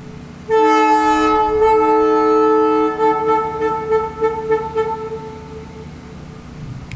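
Leslie S2M two-chime air train horn sounding a blast: it comes on about half a second in as a steady two-note chord, holds for about two and a half seconds, then wavers and stutters as it trails off, fading out by about five and a half seconds.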